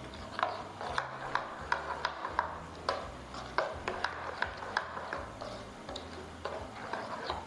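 Metal spoon stirring a thick yogurt-and-cream marinade in a bowl, with irregular light clicks and scrapes of the spoon against the bowl, a few each second.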